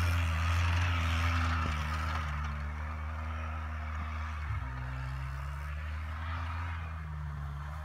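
Quad bike (ATV) engine running as it drives across snow, a steady hum whose pitch dips and rises a little with the throttle, easing slightly after about two seconds.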